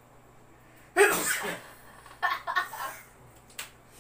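A person sneezes once, sharply, about a second in, followed a second later by a few short vocal bursts.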